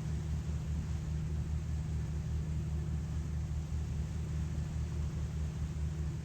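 Passenger ferry's engine running with a steady low hum and a faint wash of hiss.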